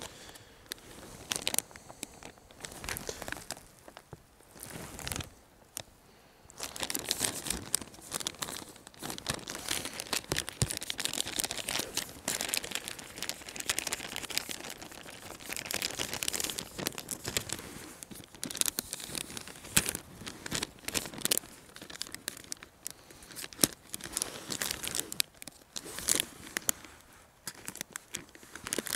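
Plastic and paper ration-pack packaging crinkling and being torn open as it is handled, in uneven spells with short pauses.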